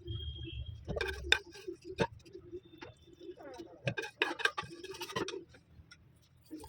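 Kitchen utensils clicking, knocking and clinking against a cooking pot and dishes, in irregular short taps with a brief faint ring now and then.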